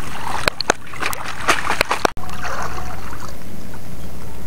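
Wading and splashing in shallow seawater, with a few sharp clicks and knocks in the first two seconds. A brief break about two seconds in, then a steady hiss of moving water.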